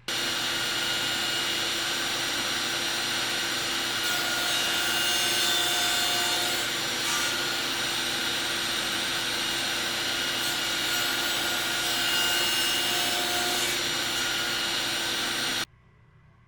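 An electric woodworking power tool running steadily on walnut, with slight swells in level as it works the wood. It cuts off abruptly near the end.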